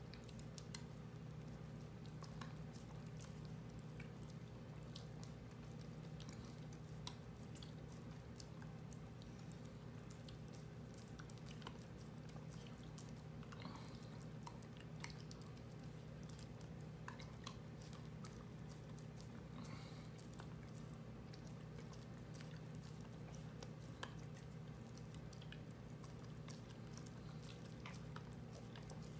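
A dog licking and biting at an ice cream bar held out by hand: soft wet smacks and small clicks come irregularly, over a steady low hum.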